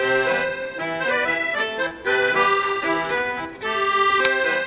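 Accordion music: a tune of short held notes over chords, changing about twice a second.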